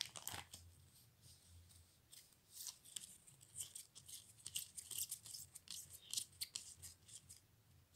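Stiff glossy football trading cards flicked and slid one behind another in the hand, giving faint, irregular crisp ticks and rustles.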